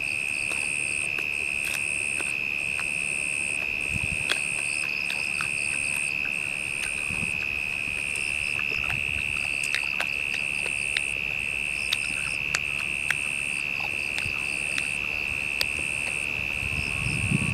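Tropical forest insects calling together: one high, unbroken drone and a second, higher call pulsing about every half second, with faint chirps between. A scattered handful of sharp clicks sounds over them.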